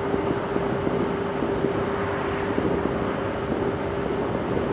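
Steady hum with one constant tone over a rushing background noise, with faint, distant firework bangs now and then.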